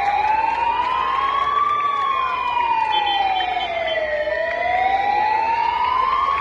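Civil protection ambulance siren sounding a slow wail, its pitch rising and falling in long sweeps of about two and a half seconds each.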